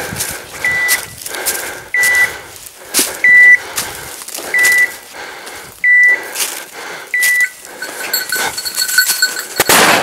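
A hunting dog's electronic beeper collar giving short, evenly spaced high beeps about every second and a half. The beeps stop a little after seven seconds in. Throughout there is the crunch and rustle of footsteps and brush through dry leaves.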